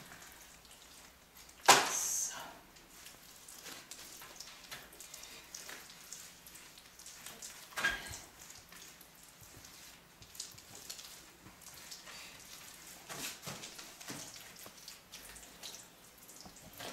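Wet straw-tempered clay being pressed and smeared into a wall by gloved hand: soft, irregular wet squelching and scraping. A sudden loud knock comes about two seconds in, and a smaller one near eight seconds.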